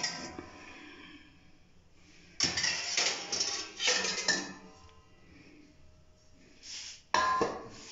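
Stainless steel plates and utensils clattering against each other for about two seconds, then a sharp metallic clang that rings briefly near the end.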